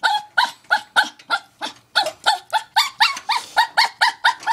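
Yorkshire terrier yapping in quick, high-pitched yips, about three a second without a break.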